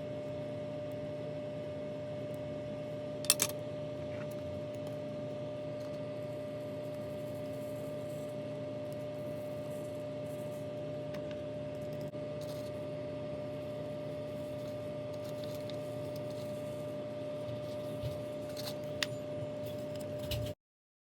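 Steady room hum with a constant tone, broken by a sharp click about three seconds in and a few small taps and clicks near the end, like small objects being handled on a table. The sound cuts off abruptly just before the end.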